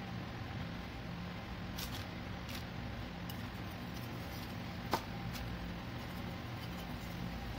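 Oil gently sizzling as a doughnut deep-fries in a stainless saucepan, with several light metallic clinks of tongs and a metal ring mold against the pan, the sharpest clink about five seconds in.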